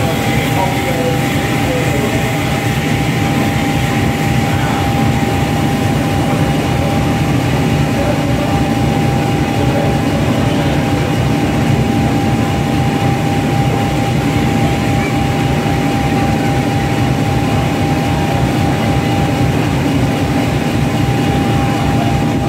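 Passenger train moving past the platform, with a heavy engine's steady low rumble and a steady high whine over it.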